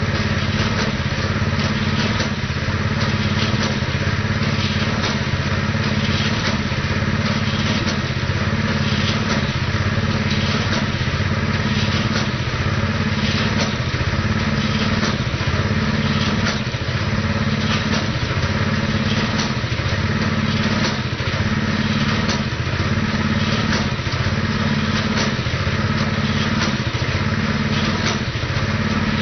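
A Predator 212cc single-cylinder gasoline engine running a cable tool percussion drill rig, its note swelling and easing about every second and three-quarters in time with the drilling stroke as the tool is lifted and dropped, with faint clanks.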